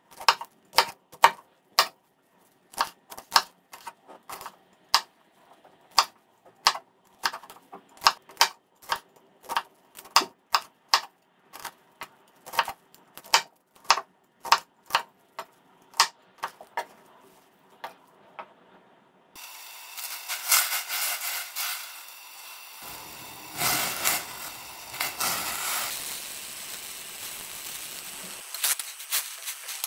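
Chef's knife chopping broccoli florets on a wooden cutting board: sharp knocks of the blade meeting the board, about two a second. After about 19 seconds the chopping gives way to a steady hiss that grows louder for a few seconds in the middle.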